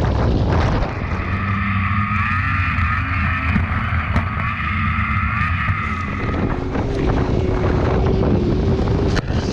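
Wind rushing over the microphone of a skier towed at speed. Then a snowmobile engine runs hard under load, its high whine steady but wavering slightly. In the last few seconds the engine sound drops to a lower steady tone.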